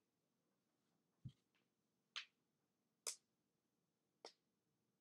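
Near silence broken by four faint, sharp clicks about a second apart, like clicks of a computer mouse or keys at a desk.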